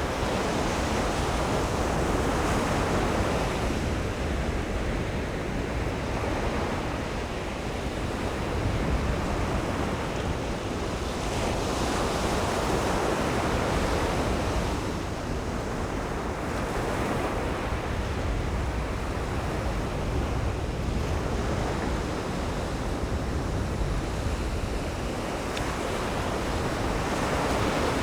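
Ocean surf breaking on a beach, the wash swelling and ebbing every few seconds, with a low rumble of wind on the microphone.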